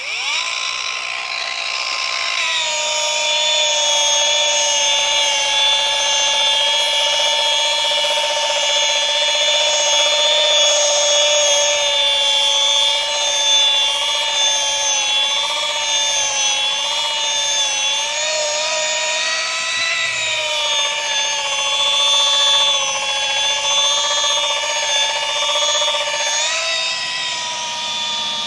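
Electric rotary polisher with a foam pad buffing a soft plexiglass window with compound to cut out sanding marks. Its motor gives a steady high whine that comes up to speed in the first couple of seconds, then wavers and dips slightly in pitch as the pad is pressed and moved over the glass.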